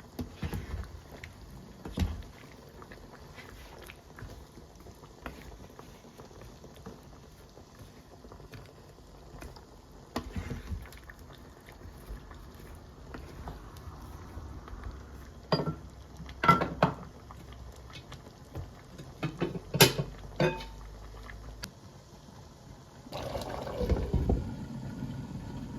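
Pot of coconut-milk green curry bubbling on the stove, with a handful of sharp knocks and clinks scattered through, the loudest about two-thirds of the way in, and a louder rush of noise near the end.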